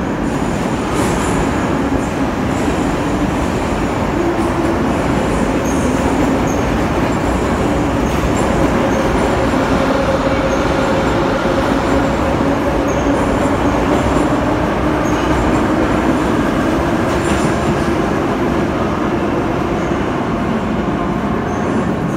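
An 81-717-type metro train running through the station at speed without stopping: a steady loud noise of wheels on rail with a faint low hum, and short high wheel squeaks scattered throughout.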